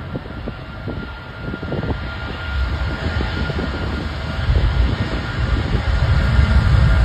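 American Airlines Boeing 777-200ER's twin Rolls-Royce Trent 892 engines at takeoff power: a deep rumble with a steady whine that grows steadily louder as the jet rolls down the runway. Cars pass on a road in front, adding tyre noise.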